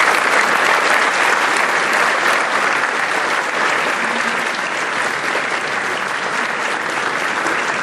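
Audience applauding, a dense steady clatter of many hands clapping that eases slightly toward the end.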